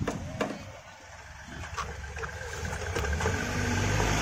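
A few sharp knocks and clicks as a scooter wheel with a tubeless tyre is handled and fitted back onto its axle, over a low rumble that grows louder near the end.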